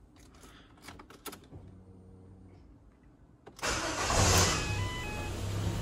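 A 2010 Ford Fiesta Zetec's engine being started. A few faint clicks come first, then about three and a half seconds in the engine cranks and catches with a brief rise. It settles straight into a steady, smooth idle.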